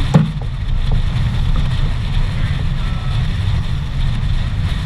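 Wind buffeting the microphone in a heavy, steady rumble, over the rush of water along the hull of a heeled sailboat under sail. A single sharp thump comes just after the start.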